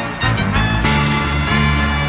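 Instrumental stretch of a Malay-language Penang football supporters' rap anthem: backing music with a heavy bass line and no vocals.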